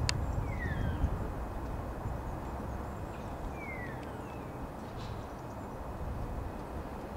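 Outdoor streamside ambience: a steady rushing background noise with two short descending bird whistles, one just under a second in and another about three and a half seconds in, and a sharp click at the very start.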